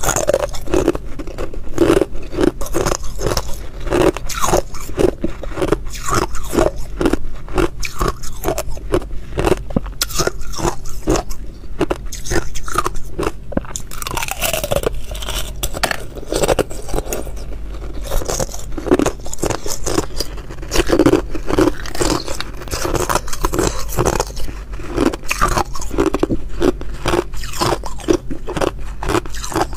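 Thin sheets of ice being bitten and chewed close to the microphone: a fast, unbroken run of sharp, brittle crunches and cracks as the ice shatters between the teeth.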